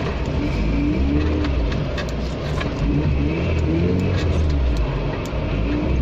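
A 4x4's engine driving off-road over rough ground. The revs rise and fall several times, with scattered knocks and rattles from the vehicle.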